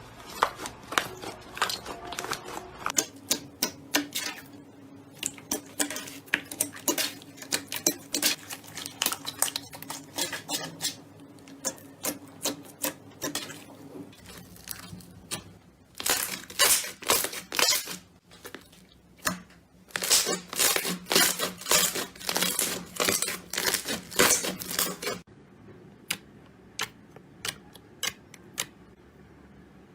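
Slime being squeezed and pressed, making rapid crackling clicks and pops. They come thickest and loudest about halfway through, then thin out to scattered clicks near the end.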